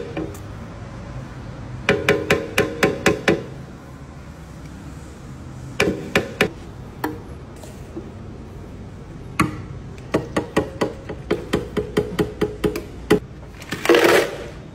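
A spoon knocked in several quick runs against the rims of a jar and a plastic blender jug, shaking off chocolate spread and drinking-chocolate powder; each knock rings briefly. Near the end, a short rushing pour into the jug.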